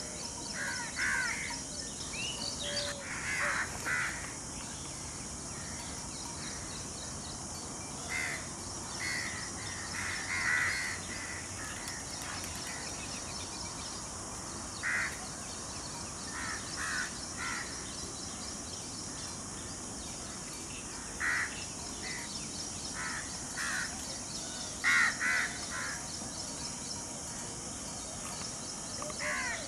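Birds calling in short cawing calls, often two or three close together, scattered every few seconds, over a steady high hiss.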